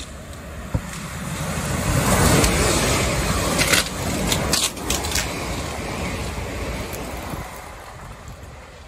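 Third-rail electric multiple unit passing through at speed: a rush of wheels on wet rails that builds to a peak about two seconds in, then slowly fades away. Around the middle come several sharp crackles from the collector shoes arcing on the rain-wet conductor rail.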